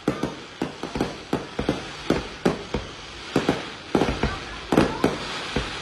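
Aerial fireworks shells bursting in a rapid, irregular string of bangs, about three a second, each with a short trailing echo.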